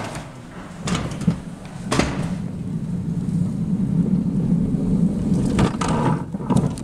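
Alpine coaster sled rolling down its steel track: a low rumble that builds from about two seconds in, with several sharp knocks and rattles along the way.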